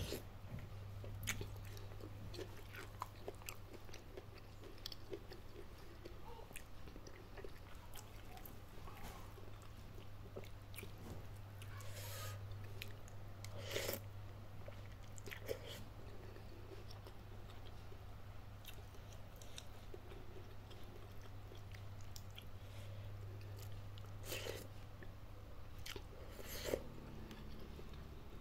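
Close-miked chewing of spicy instant noodles with bok choy and corn, with scattered sharp clicks and a few louder bites about halfway and near the end, over a steady low hum.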